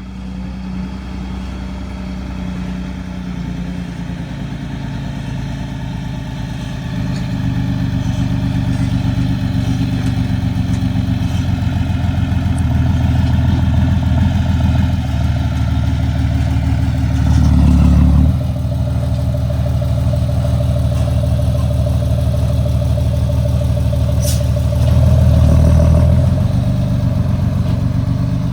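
Excavator engine running steadily, its note and loudness swelling briefly twice as it takes load. A short high squeak comes between the two swells.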